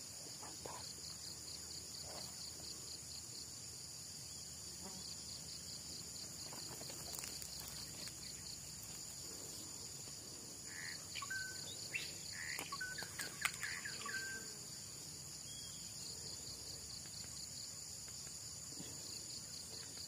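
A steady, high-pitched insect chorus with a fine pulsing buzz, with a few short chirps and clicks about halfway through.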